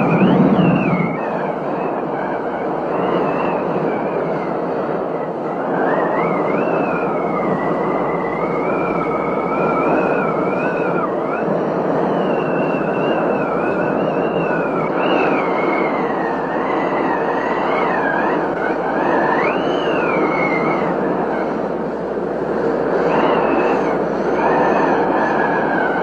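A high whistling tone that wanders slowly up and down in pitch, over a steady rushing noise.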